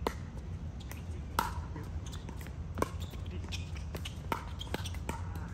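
Pickleball rally: paddles popping the plastic ball back and forth, a sharp hit about every one and a half seconds, quickening near the end, with softer ticks in between over a steady low hum.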